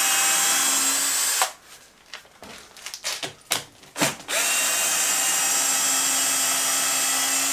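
Cordless drill-driver running in reverse, backing screws out of the timber face board of a concrete lintel's formwork. A short run stops about a second and a half in, followed by a few light clicks and knocks as the driver is moved to the next screw, then a second, longer steady run.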